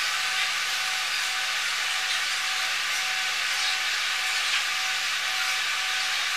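Steady ventilation hiss with a few faint, steady hum tones beneath it.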